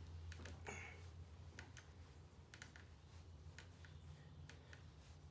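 Near silence: a low steady hum with a dozen or so faint, irregular small clicks.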